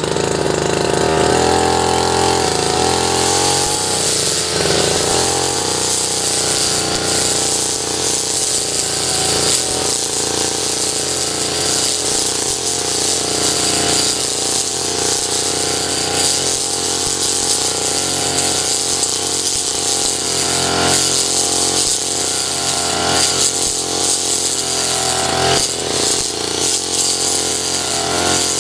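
Two-stroke brush cutter engine running steadily while its 40 cm metal blade cuts short grass; the engine note wavers a little as the blade swings through the cut.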